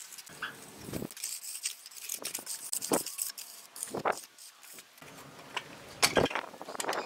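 A steel trowel scraping and tapping on wet cement mortar in a wooden form: irregular scrapes with a few sharper clinks and knocks.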